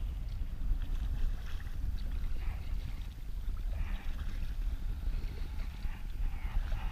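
Low wind rumble on the microphone, with a kayak paddle dipping and splashing in the water a few times.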